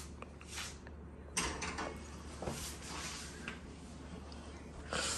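Kitchen handling noises: a sharp knock about a second and a half in, then soft scrapes and light clatter and another knock near the end, over a steady low hum.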